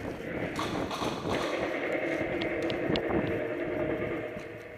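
Footsteps and gear rattle of a player moving quickly across a concrete floor in a large indoor hall, over a steady hum. A few faint sharp clicks come about halfway through.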